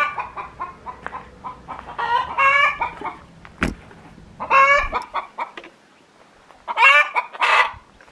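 Hens cackling in four loud bouts about two seconds apart: the egg song that hens raise around laying, loud enough to be called madness.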